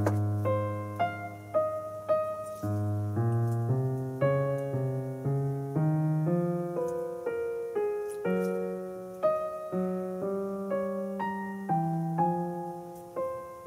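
Background piano music: a slow, calm solo piano piece, with notes and chords struck about twice a second over held bass notes, each note decaying after it is struck.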